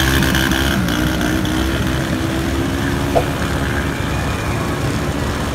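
Small motorcycle engine running as the bike wades through floodwater, its pitch wavering and fading away over the first few seconds, over a steady wash of rushing water. A short click about three seconds in.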